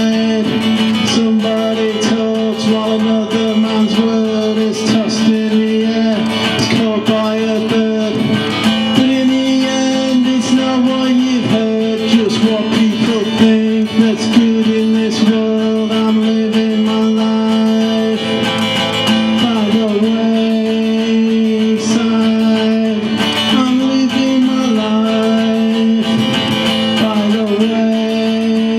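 Solo acoustic guitar playing an instrumental passage of strummed and picked chords, with a held note ringing steadily underneath and some sliding notes.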